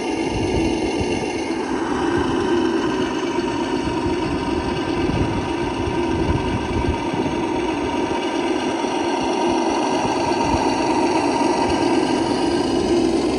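Electric motor and drivetrain of a Traxxas TRX-6 six-wheel RC truck running steadily, a continuous mechanical whir and hum that grows a little fuller about two seconds in.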